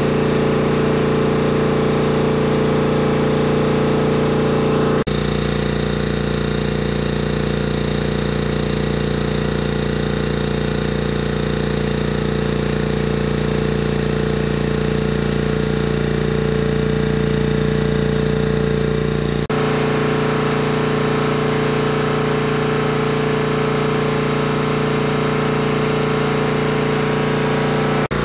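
Tanabe H-74 two-stage reciprocating marine air compressor running steadily under load, pumping up an air receiver. Its steady mechanical hum changes abruptly twice, about five and nineteen seconds in.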